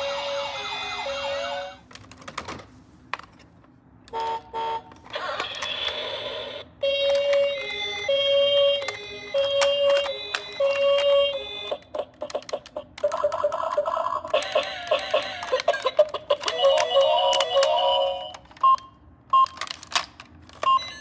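Ambulance siren sounds in short bursts: two-tone beeping and wailing sweeps that start and stop several times, broken up by sharp plastic clicks and clatter.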